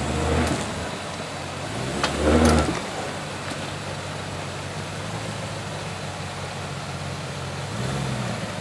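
Land Rover Discovery 2 engine running at idle, with two short surges of throttle, one right at the start and one about two seconds in, and a sharp knock just before the second surge.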